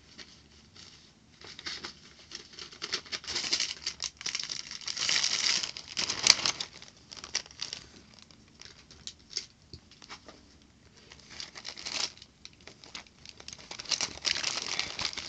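School supplies being handled and packed into a bag: irregular rustling and crinkling in bouts, with one sharp click about six seconds in.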